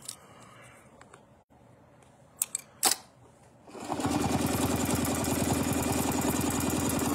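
A few light clicks, then about four seconds in a sewing machine starts and runs steadily, stitching at an even, fast rhythm.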